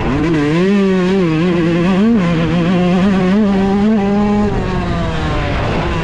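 Yamaha YZ125 single-cylinder two-stroke dirt bike engine under riding load. It revs up just after the start and is held high with small rises and dips of the throttle, then the revs fall away in the last second and a half as the throttle is rolled off.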